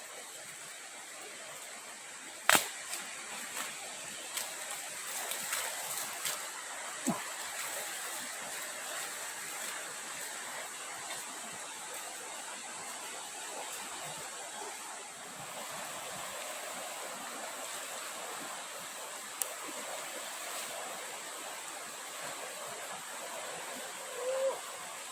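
Steady rush of a forest stream, with a thin high tone held throughout. A sharp click sounds about two and a half seconds in, followed by a few lighter clicks.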